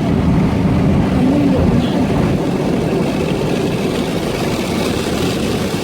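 Automatic car wash running over the car, heard from inside the cabin: a loud, steady low rumble and rush of water and machinery on the body.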